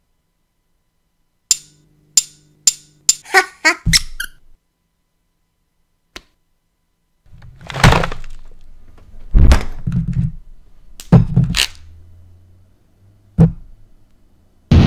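Steel balls of a Newton's cradle clacking: about seven sharp clicks that come faster and faster and stop. After a pause, a low hum with a series of heavy thuds.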